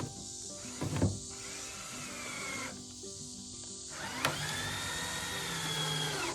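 Background music over a power tool running in two spells, with a sharp knock about a second in and another just after four seconds.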